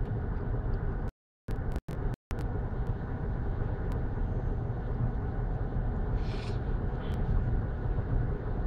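Steady road and engine noise inside a moving car's cabin. The sound drops out completely three times for a split second each, a little over a second in.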